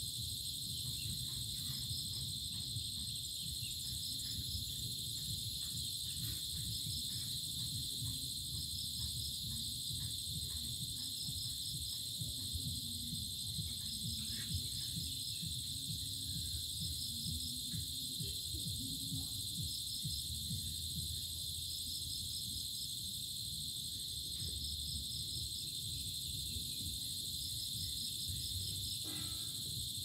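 Evening insect chorus: a continuous high-pitched drone of crickets or cicadas, with short trains of rapid chirps repeating every couple of seconds above it, over a low background rumble.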